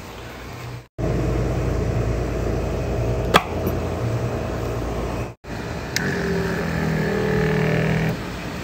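Electric pump of a small wheeled tank sprayer running with a steady hum and low rumble, with a couple of clicks. About two thirds of the way through there is a switch click, after which a steadier motor hum runs briefly. The sound cuts off abruptly twice.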